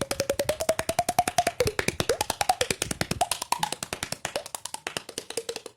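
Rapid finger taps on the cheeks with the mouth open, about ten hollow pops a second. The pitch of the pops shifts and slides up and down as the mouth changes shape.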